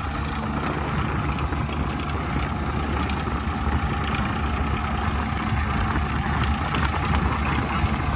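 Diesel engines of a Swaraj 855 and a New Holland 3630 tractor running steadily under load as the two pull against each other on a chain, a continuous low engine drone.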